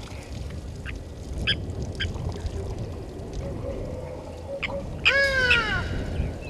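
A bird gives one loud call that falls in pitch, lasting under a second, about five seconds in. Before it come a few short chirps and some soft, short low notes over a steady low background noise.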